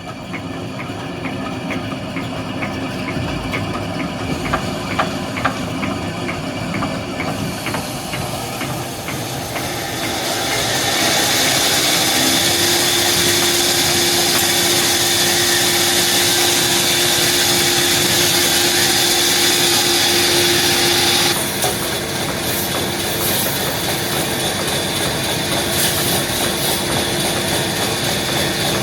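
Sawmill machinery running with scattered knocks, then a saw blade cutting through a log for about ten seconds: a loud hissing with a hum that rises in pitch and holds steady, stopping abruptly as the cut ends, after which the machine keeps running.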